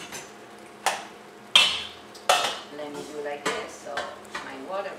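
Metal kitchenware clanking at a steel stockpot: about six sharp knocks of a utensil or lid against the pot as the boiling pasta is checked, the loudest about a second and a half in.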